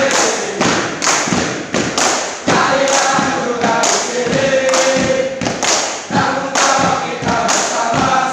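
A group of men chanting a yel-yel cheer in unison while stamping their feet, the stamps falling about twice a second under the voices.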